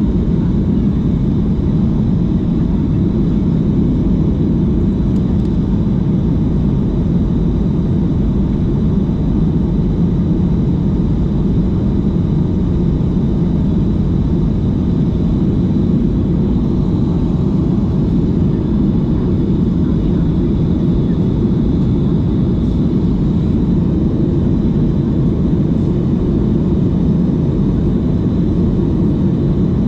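Boeing 737 MAX 8 cabin noise during the climb after takeoff: the steady, low drone of its CFM LEAP-1B turbofan engines and the airflow past the fuselage, with a faint high-pitched whine above it.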